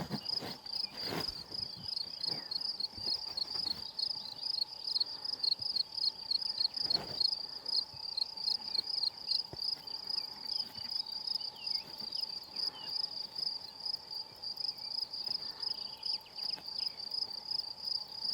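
Crickets or bush-crickets chirping in a steady, high-pitched, rapid pulsed trill, about five chirps a second, with a few faint knocks near the start and about seven seconds in.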